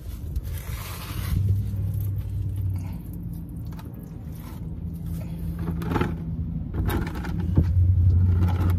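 A vehicle engine running with a steady low hum that grows louder near the end, with a few short knocks and scrapes.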